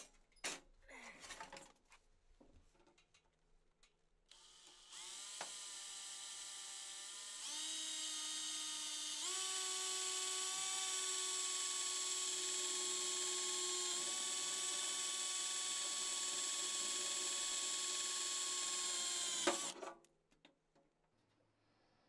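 Cordless drill drilling a hole through thin sheet-metal stove panel: a high-pitched whine starts about four seconds in, rises in pitch in a few steps, holds steady for about ten seconds, then stops suddenly near the end. A few light handling clicks come before it.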